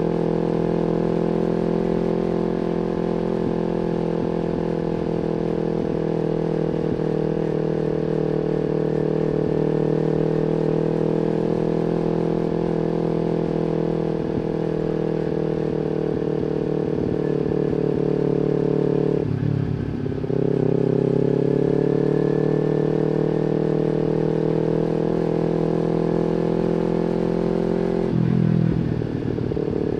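Kawasaki Z250 engine running through an aftermarket slip-on silencer while riding, with a steady exhaust note. About 19 s and 28 s in, the note breaks briefly for a gear change and comes back lower before climbing again: upshifts under acceleration.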